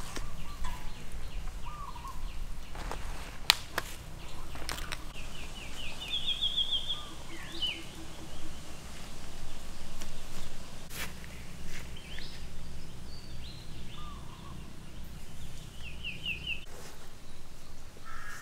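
Wild birds calling in woodland: several short, rapid trills and chirps over a steady low outdoor rumble, with a few sharp clicks, the loudest about three and a half seconds in.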